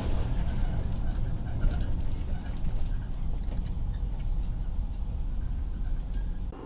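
A car driving, heard from inside: a dense, steady low rumble of engine and road noise.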